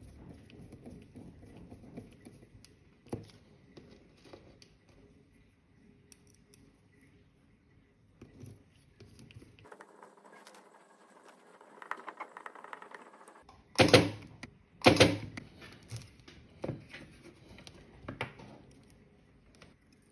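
Handling noise of small hard objects on a work surface, with two loud sharp knocks about a second apart around two-thirds of the way through, followed by a few lighter clicks.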